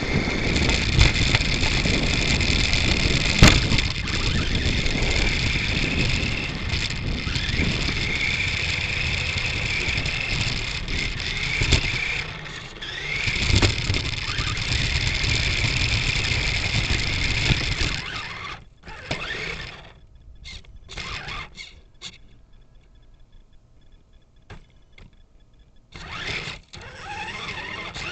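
Xmod 4x4 RC buggy heard from a camera riding on it: its small electric motor's high whine rises and falls with the throttle over a heavy rattle of wheels and chassis on rough ground, with a sharp knock a few seconds in. About two-thirds of the way through the motor mostly stops, leaving short stop-start bursts, then it runs again briefly near the end.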